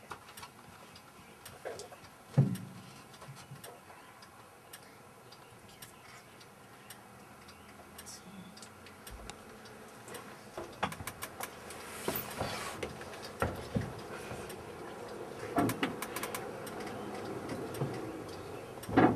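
Interior of a moving bus: scattered clicks and rattles with a single sharp knock about two seconds in. The rattling grows busier and louder from about halfway, with more knocks later.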